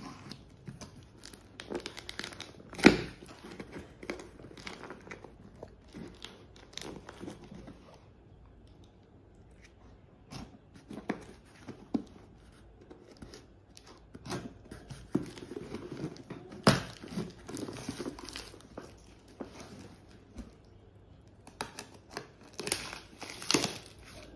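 Snap-off utility knife slicing through packing tape and cardboard on a parcel, with tape tearing and crinkling in irregular scrapes and snaps. A few snaps stand out louder, and there is a quieter stretch about a third of the way in.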